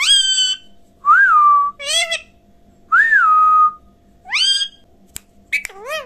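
Indian ringneck parakeet giving short, sharply rising calls about four times, alternating with two longer whistles that rise, dip and then hold a steady note.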